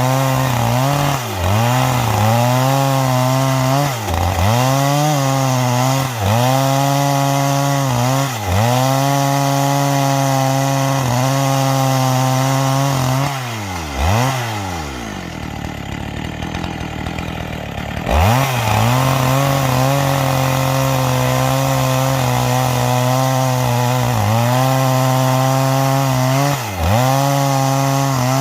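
Two-stroke chainsaw ripping a garapa log lengthwise with a square-ground chain. The engine note dips briefly every couple of seconds and recovers as the chain bites. About halfway through it drops to a quieter idle for some four seconds, then revs sharply back up and cuts again.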